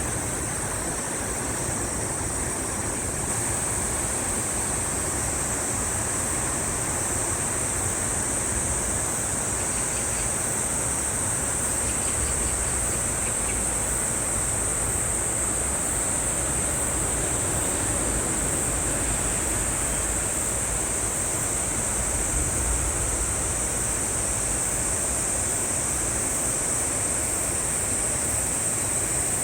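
Steady rushing of a valley stream's flowing water, with a constant high-pitched hiss over it and an uneven low rumble underneath.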